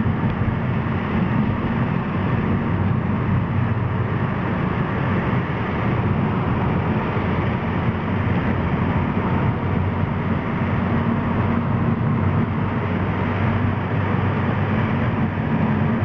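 Steady engine and tyre noise of a car driving through a road tunnel, heard from inside the cabin, with an even low rumble that does not change.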